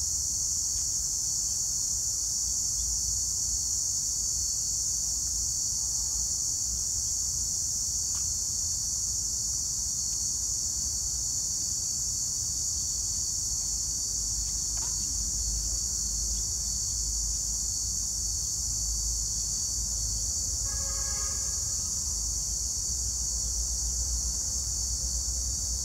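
Steady, high-pitched chorus of insects in the park's trees, over a low rumble, with a brief pitched call standing out about three-quarters of the way through.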